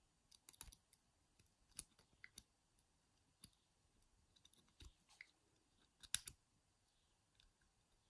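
Faint, scattered clicks and scrapes of a wire pick and tension tool working the levers inside a small Squire 220 lever padlock while it is being picked. A pair of clicks about six seconds in are the loudest.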